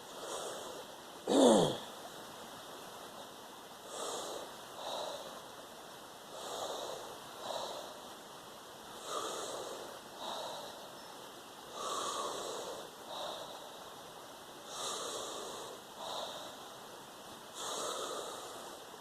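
A person breathing deeply and rhythmically, in and out, one breath cycle about every three seconds, as part of a breathing exercise. A single loud, short sound falling in pitch comes about a second and a half in.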